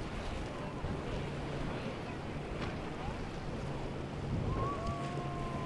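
Rigid inflatable boat passing at speed: its engine a steady low hum under the rush of water off the hull, with wind buffeting the microphone. Near the end a faint whistle-like tone sounds for about a second and a half.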